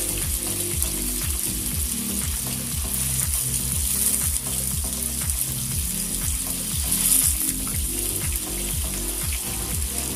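Slabs of tofu frying in hot oil, a steady sizzling hiss, over background music with a regular low beat.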